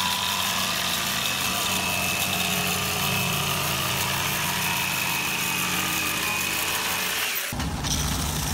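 Handheld jigsaw cutting through a plywood sheet, running steadily; about seven and a half seconds in it gives way to a bench-mounted edge belt sander running, lower and heavier.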